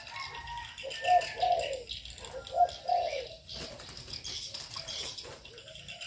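Doves cooing twice, each a short phrase of two or three rounded notes, with faint high chirping of small birds throughout.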